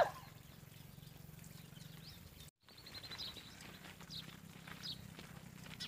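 Quiet outdoor ambience with faint, scattered bird chirps and a low steady hum, broken by a brief drop-out to silence about two and a half seconds in.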